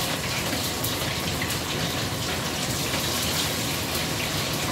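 Starch-coated fish frying in a wok of oil on a gas burner: a steady sizzle with scattered small crackles.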